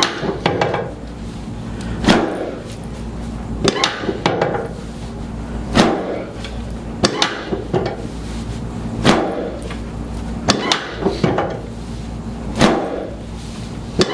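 Chiropractic drop table: the drop section snapping down under each adjusting thrust, about ten sharp clacks spaced one to two seconds apart.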